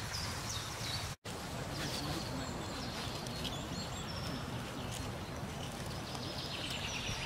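Woodland birds singing: short high chirps and whistles from several birds, repeating on and off, over a steady low rumble. The sound drops out completely for a moment about a second in.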